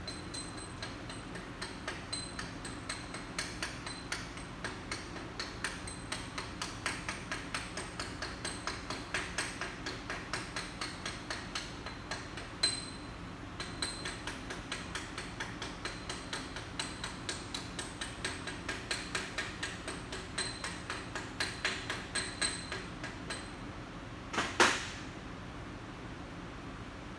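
Hammer striking steel in quick, even blows, about three a second, each with a metallic ring. There is a short break about halfway through, and one heavier blow near the end.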